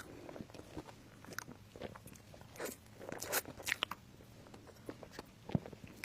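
A person biting and chewing crunchy food: irregular crisp crunches, most of them in a cluster in the middle, with a dull knock near the end.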